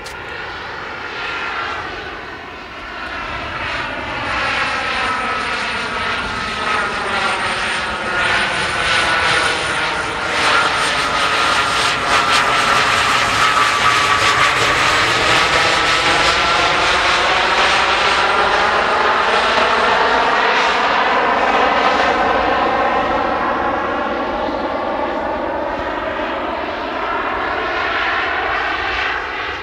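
Four JetsMunt M166 model turbine jet engines of a 1/13-scale radio-controlled Airbus A380 running in flight as it passes overhead. The jet rush swells to its loudest about halfway through, with a faint high whistle on top, and then fades, its tone sweeping down and back up in the swishing way of a flyby.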